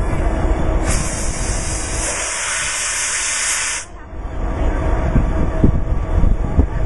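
Compressed air hissing at the coupling between a diesel locomotive and the C&O 614 steam locomotive, typical of the air brake line being blown through or charged. The hiss starts about a second in, lasts about three seconds and cuts off suddenly, over a steady low rumble.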